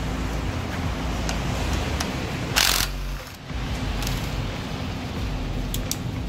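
Hand socket wrench undoing bolts on top of a car engine: a few light metal clicks over a steady low hum, with a brief loud rush of noise a little over two and a half seconds in.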